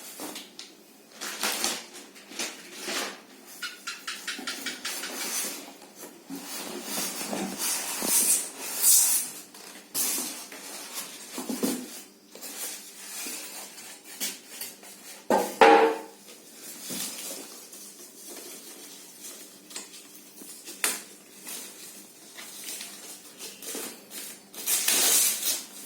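Packaging being handled while unboxing a speaker set: irregular rustling and scraping of plastic wrap and cardboard, with scattered knocks and clatters.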